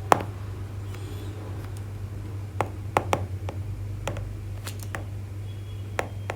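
Scattered sharp taps and clicks from writing, about seven in all, over a steady low hum.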